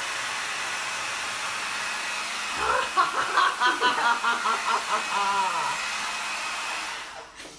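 Small handheld hair dryer running steadily with a faint whistle, blowing air onto a wet acrylic paint pour to push the paint around, then switched off about seven seconds in. A person's voice sounds over it for a few seconds in the middle.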